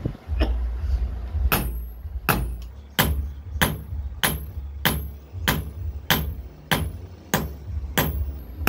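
A hand hammer beating a red-hot steel knife blade, forged from an old file, on an anvil. About eleven evenly spaced blows, roughly three every two seconds, begin about a second and a half in, each with a short metallic ring.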